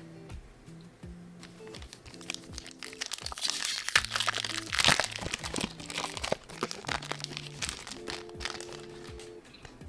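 Foil wrapper of a Pokémon card booster pack crinkling and tearing as it is opened, loudest in the middle, over background music with held low notes.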